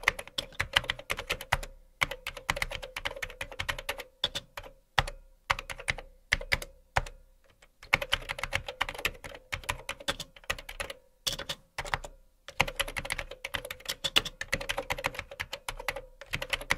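Computer keyboard typing: runs of quick keystroke clicks broken by short pauses.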